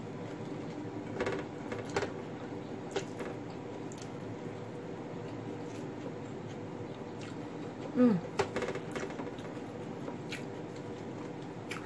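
Eating sounds of a person eating rice and fried fish by hand: soft chewing with scattered small clicks and taps of fingers on the plate, over a steady low hum. About eight seconds in comes the loudest sound, a short one that drops in pitch.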